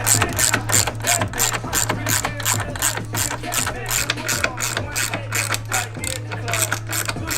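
Hip-hop song with a steady deep bass line and fast, evenly spaced hi-hat ticks, about five a second.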